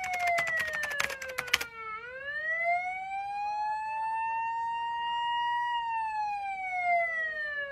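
Emergency siren wailing slowly: its pitch falls, rises and holds, then falls again. Rapid clicking over it stops about a second and a half in.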